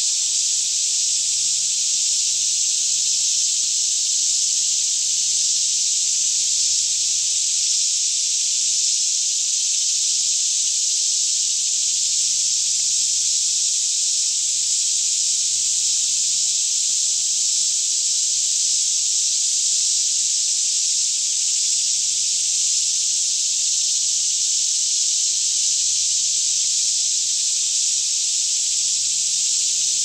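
A daytime chorus of many cicadas singing all around, a steady, unbroken high-pitched drone.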